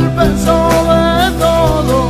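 Music from a gypsy Christian worship song (alabanza gitana): a wavering lead melody with vibrato over a steady beat and sustained bass.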